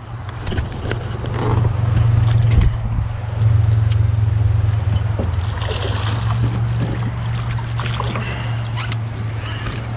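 Small boat's motor running with a steady low hum, with faint knocks and rustles over it.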